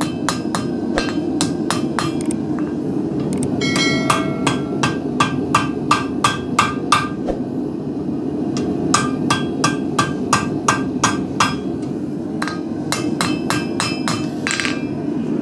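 Steel hand hammer striking thin hot steel on an anvil: a quick run of light, ringing blows, about three a second, with short pauses in the middle, as the thinned stock is worked and straightened.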